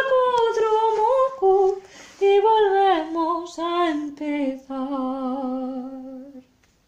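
A single unaccompanied voice sings in a classical, operatic style. It moves through a falling phrase and ends on a long low note held with vibrato, which stops about six and a half seconds in.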